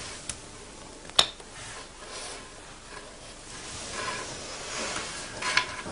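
White porcelain teapot being handled: one sharp clink of the lid about a second in, with soft rubbing and a few lighter clicks around it.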